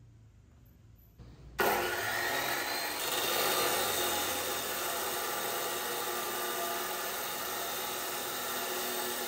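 Laxton LX249 14-inch abrasive cut-off saw starting abruptly about a second and a half in, then running steadily as its disc grinds through a metal pipe.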